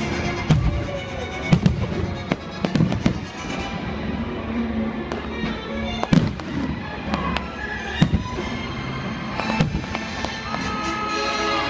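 Aerial fireworks bursting in a string of sharp, irregularly spaced bangs, over music playing on the stadium's sound system.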